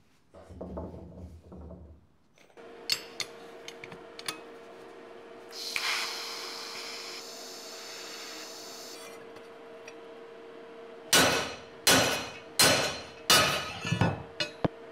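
Welding arc hissing steadily for about three and a half seconds, then five sharp, ringing strikes on a steel plate, less than a second apart.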